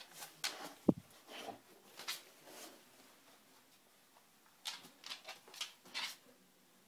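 Chihuahua puppy scrabbling and rustling on a fabric dog bed: scattered short rustles, a denser cluster near the end, and a single low thump about a second in.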